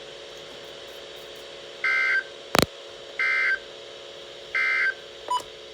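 Three short, identical electronic beeps about 1.3 seconds apart, heard over the steady hiss and low hum of a weather-radio broadcast. A sharp click falls between the first two beeps, and a brief, lower blip comes near the end.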